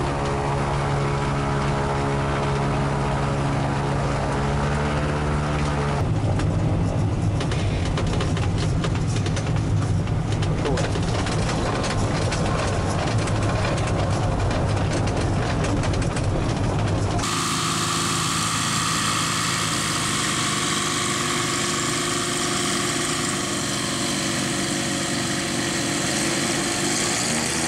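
The Che-29 amphibian's twin Rotax 912 four-cylinder boxer engines and propellers running steadily while taxiing. The sound changes abruptly about six seconds in and again past the middle, from a steady engine drone to a noisier one and then to a brighter, higher one.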